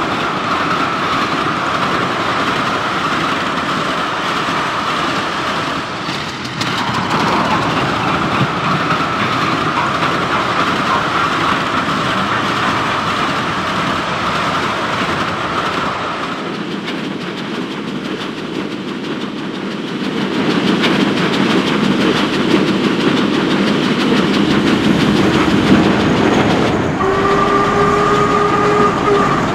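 Archive recording of full-size steam locomotives working, a continuous dense rush of steam and running noise. Near the end a steam whistle sounds, two steady notes held together for about two seconds.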